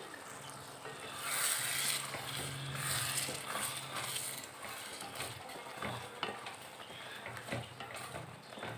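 A spatula stirring coconut-shallot paste into a thick, simmering tamarind curry in a metal pot: wet churning and scraping, loudest for a couple of seconds about a second in. After that come lighter scrapes and taps of the spatula against the pot.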